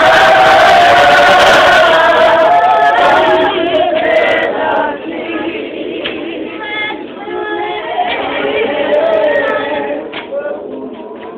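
Group of church women singing a hymn together without instruments, loud at first and softer from about halfway through. A few sharp clicks near the end.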